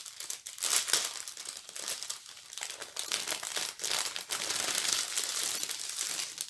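Plastic packaging of diamond painting bead sachets crinkling and rustling as it is handled and pulled open.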